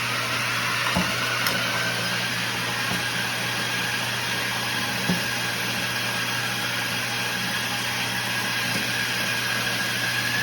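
Treadmill motor and belt running steadily under small die-cast toy cars, a steady hum with a whine that rises slightly in pitch, and a couple of faint small knocks.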